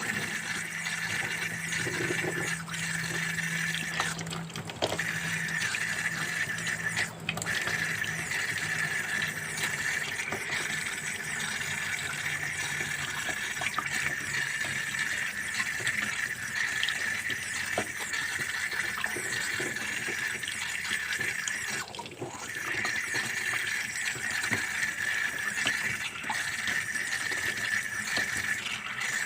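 Water running steadily from a kitchen tap into a sink, with a few brief breaks in the flow.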